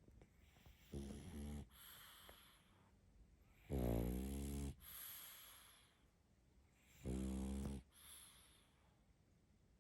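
A sleeping pug snoring: three rattling snores about three seconds apart, the middle one loudest, each followed by a softer breathy exhale.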